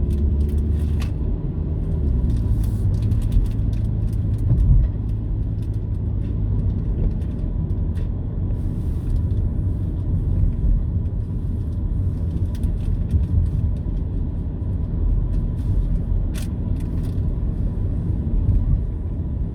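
Road noise inside a moving car's cabin: a steady low rumble of engine and tyres, with a few scattered faint clicks.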